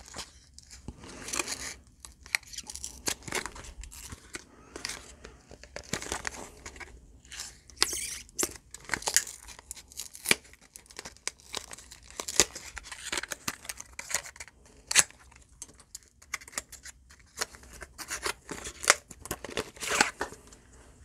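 A cosmetics box and tube being opened and handled by hand: a long run of irregular scratchy rustles, scrapes and crinkles from the cardboard packaging.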